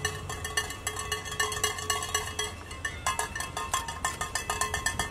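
Bells clanging rapidly and without a break, many sharp metallic strikes a second, over the low rumble of vehicles passing slowly.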